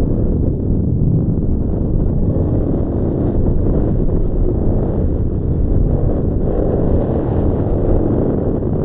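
Strong wind blowing: a steady, loud, low rush of noise with no breaks, heaviest in the low end.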